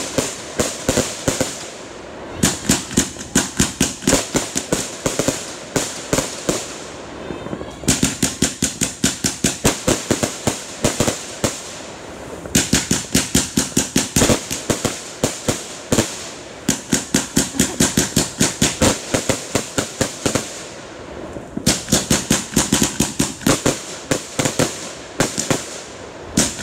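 Aerial fireworks firing in rapid volleys: sharp launch and burst reports, several a second, in runs of a few seconds with brief pauses between runs.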